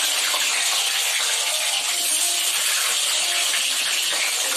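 Potato pieces sizzling as they fry in hot mustard oil in a kadai, a steady even hiss.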